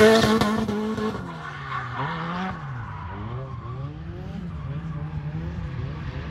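Turbocharged KA24DET four-cylinder of a Nissan 240SX drifting: the engine is held high in the revs with tyres screeching, loud at first and dropping away after about a second. The engine then runs on farther off, its pitch rising and falling over and over as the throttle is worked through the slide.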